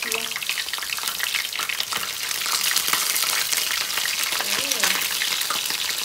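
Chicken pieces frying in hot oil in a wok, a steady crackling sizzle, while a metal utensil turns them in the pan.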